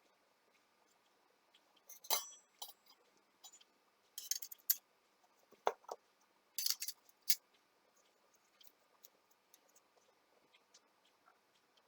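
Small metal parts clicking and clinking as they are handled, in a few short groups of sharp knocks with quiet between.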